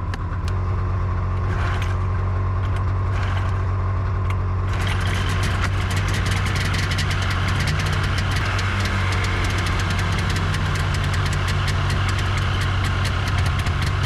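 Polaris snowmobile engine running at a steady idle. About five seconds in, a fast, rattly clatter joins the low drone and keeps on.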